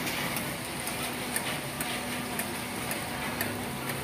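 Martabak telor frying in oil on a flat steel griddle: a steady sizzling hiss mixed with the sound of rain, and sharp ticks about twice a second.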